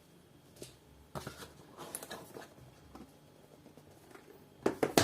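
Packaging being handled and unpacked by hand: scattered rustles and light taps, with a louder cluster of knocks near the end.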